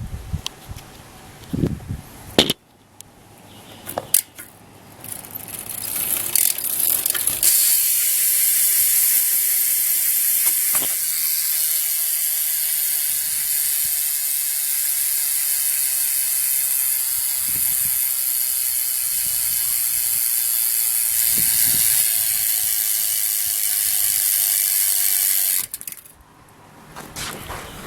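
Profile BMX rear hub's ratchet pawls buzzing as the rear wheel spins freely: a loud, fast, steady clicking that runs for about twenty seconds and cuts off suddenly near the end. A few knocks come first as the wheel is handled and set spinning.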